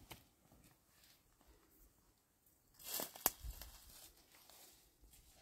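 Quiet handling noise: about three seconds in, a short rustling tear followed at once by a sharp click, with a few faint dull knocks after.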